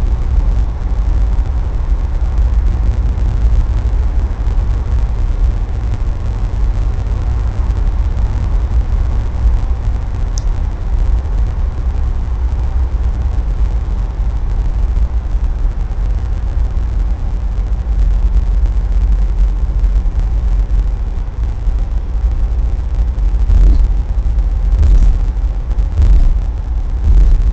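Steady low rumble of a car driving along a highway, engine, tyre and wind noise heard from inside the car, with a faint short tick about ten seconds in.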